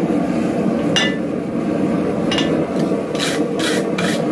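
Block-type wire brush scrubbed back and forth over the forged steel hook on the anvil, in short rasping strokes about two a second from about three seconds in. A couple of light metal clinks come earlier, over a steady low rush.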